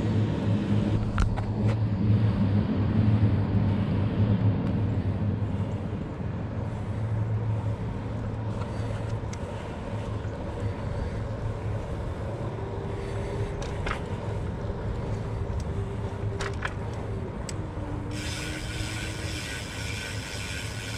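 Riding noise from a bike rolling along a paved path: wind on the handlebar microphone and tyre rumble, louder for the first few seconds, then easing off.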